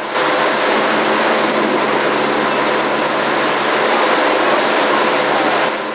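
Motorboat engine running steadily at towing speed, under a dense rush of water and wind noise; it fades away near the end.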